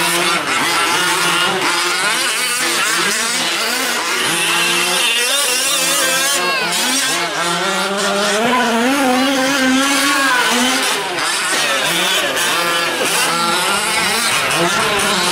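Several 1/5-scale gas RC trucks' small two-stroke engines racing, each revving up and down, their rising and falling pitches overlapping throughout.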